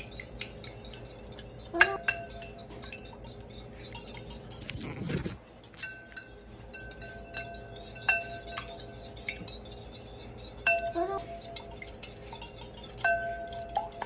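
Egg and milk being whisked in a ceramic bowl: a fork and whisk clink lightly and quickly against the bowl, with four harder knocks that leave the bowl ringing.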